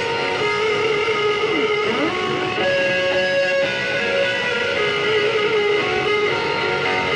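Solo electric guitar played through a Marshall amp stack, a slow melody of long held notes; about two seconds in one note swoops down in pitch and back up.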